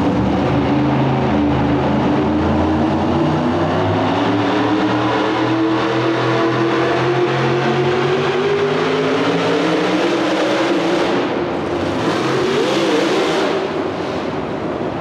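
Supercharged engine of a modified pickup pulling truck running steadily while hooked to the sled, then revving up about six seconds in and climbing in pitch as the truck launches and pulls, the pitch wavering near the end.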